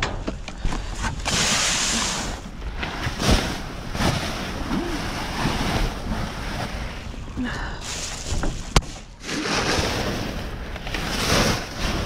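Plastic trash bags and cardboard rustling and crinkling in a dumpster as they are rummaged through, swelling in loud bursts, with a single sharp click about nine seconds in.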